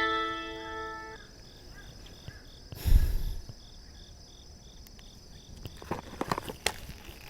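Insects, likely crickets, chirping steadily in an even high-pitched pulse, two or three chirps a second. A loud, muffled low thump comes about three seconds in, and a few sharp clicks follow near the end. Music notes ring out and stop about a second in.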